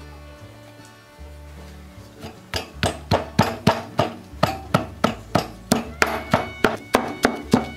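Wooden pestle pounding shallots, garlic and red chilies in a wooden mortar to crush them into a paste: steady knocks about four a second, starting about two and a half seconds in, over background music.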